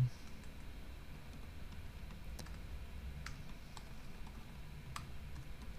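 Quiet typing on a computer keyboard: scattered, irregular keystroke clicks.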